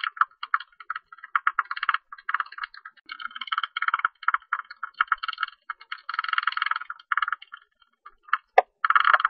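Tube-nosed bat calls: rapid trains of short clicking pulses, packed into dense bursts about a second long with brief gaps between them.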